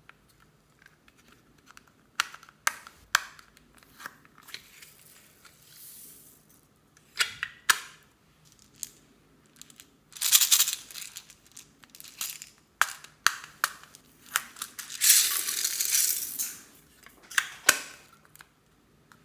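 Clear plastic containers of small foam beads handled and snapped open, with sharp plastic clicks, and the beads rattling as they pour out in two longer rushes.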